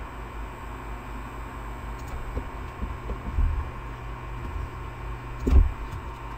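Steady low hum with faint hiss, broken by a few dull thumps, the loudest about five and a half seconds in.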